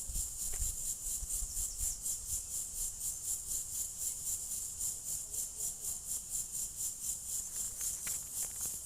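Insects chirping in a steady, high-pitched pulsing chorus, about three to four pulses a second.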